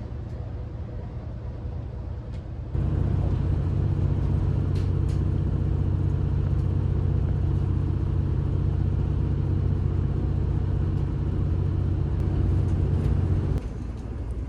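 Passenger train running, heard from inside the carriage: a steady low rumble with an engine drone. About three seconds in it jumps abruptly to a louder, fuller hum, and it drops back just as suddenly shortly before the end.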